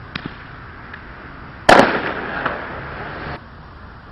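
Fireworks going off: a couple of small pops, then a loud bang about halfway through, followed by a noisy tail that cuts off suddenly about a second and a half later.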